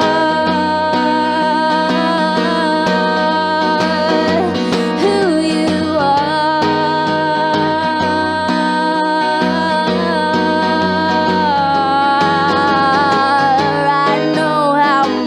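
A live song on acoustic guitar, with a female voice singing long held notes over it.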